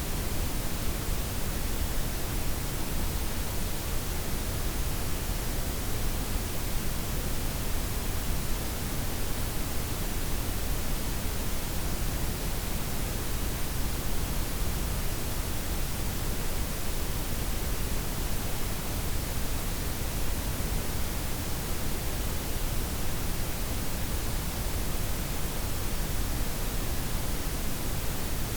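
Steady synthetic noise, a blend of white, pink and brown noise, as an unbroken hiss with a deep low rumble and no changes or events.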